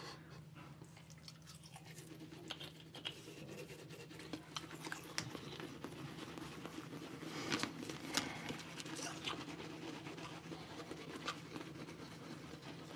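Two people brushing their teeth with toothbrushes, a faint, irregular scratchy scrubbing with occasional sharper clicks.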